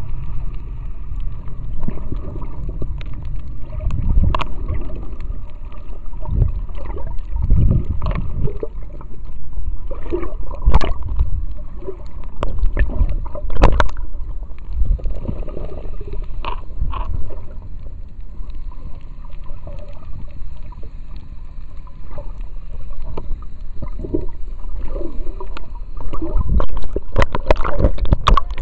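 Underwater sound picked up by a snorkeler's action camera: a low rumbling wash of moving water with scattered knocks, clicks and bubbling from the swimmer's strokes, busier near the end as the camera nears the surface.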